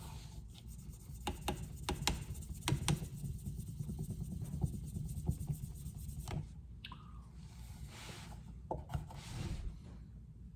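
Knife being sharpened on a guided-rod sharpening system: soft scraping strokes of the abrasive stone along the blade edge, with scattered light clicks of the rod and clamp over a low steady hum.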